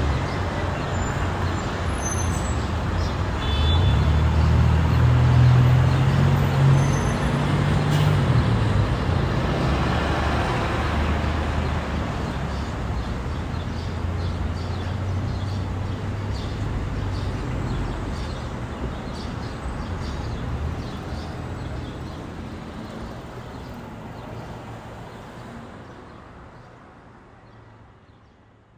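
Street traffic: a heavy vehicle's engine rumbles low and steady under road noise, then the sound fades out gradually over the last several seconds.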